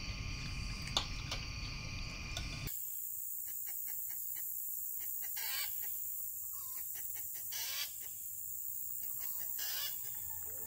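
Chickens clucking now and then over a steady high hiss, after a soft steady hum that cuts off about three seconds in.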